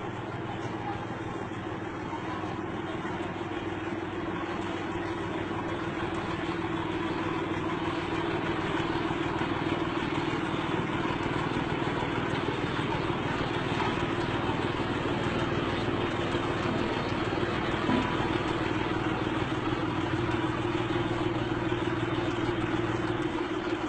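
Static road roller's diesel engine running steadily, growing somewhat louder over the first several seconds.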